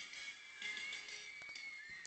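Music playing through a Ford F-250 pickup's car sound system.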